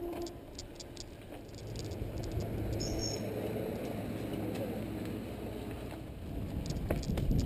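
Mountain bike rolling over a dirt trail: a steady, noisy rumble of tyres and frame vibration, louder near the end.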